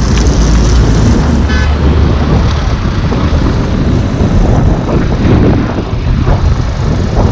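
Steady road traffic noise: car engines running in a slow-moving queue of vehicles.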